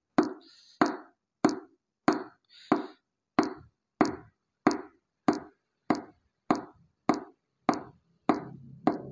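A hammer striking a wooden block laid on a new cylinder liner, tapping it down into the Isuzu Panther 2.5 engine block: about fifteen sharp knocks at an even pace of roughly one and a half a second, driving the liner until it is fully seated.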